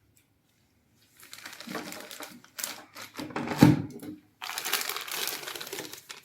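Crinkling and rustling of packaging being handled, in three stretches, with one sharp knock about halfway through.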